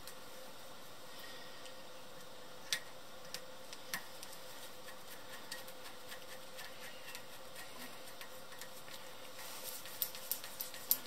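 Scattered light clicks and ticks of wires and a small screwdriver being handled at a plastic screw-terminal wiring arm, a few seconds apart, coming thicker near the end. A faint steady hum runs underneath.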